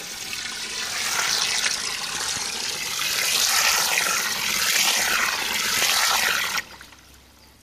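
Cold water from a garden hose at full flow gushing and splashing onto hydrogel beads in a plexiglass tank. It grows louder about a second in and cuts off suddenly near the end.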